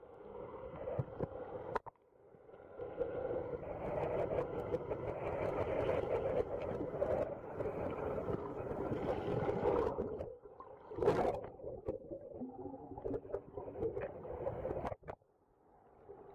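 Muffled underwater sound: a steady low drone with water movement, cutting off suddenly about two seconds in and again near the end, with a short loud bump about two-thirds of the way through.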